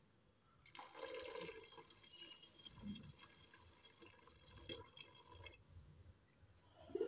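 Milk pouring in a steady stream into a steel pot of cooked rice, starting about half a second in and stopping after about five seconds.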